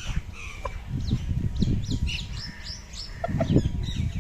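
Aseel chickens clucking, with many short, quick high chirps overlapping throughout and a low rumbling noise underneath.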